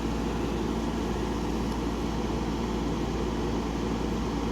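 Hampton Bay by Fedders 10,000 BTU window air conditioner running steadily on high fan with its compressor running: an even rush of fan air over a low hum.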